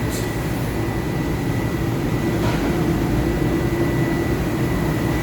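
Steady mechanical drone of running machinery or air-moving fans, with a thin, steady high whine; a low hum joins about two and a half seconds in.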